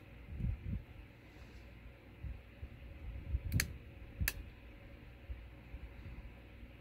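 Metal hook pick working the pins inside an Evva EPS lock cylinder: two sharp metallic clicks a little under a second apart, midway, over soft low bumps of hand handling.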